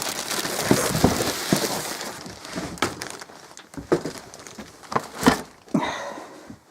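Cardboard box and plastic packaging being handled while a chainsaw is lifted out: loud crinkling and rustling for the first couple of seconds, then several sharp knocks.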